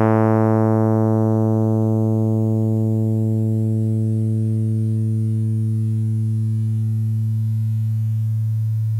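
Synthesized 110 Hz tone made by discrete summation formula synthesis with upper sidebands only. It starts bright and buzzy with many harmonics, then mellows steadily as its upper harmonics fade with the decaying envelope, leaving a duller, steady low tone that cuts off abruptly near the end.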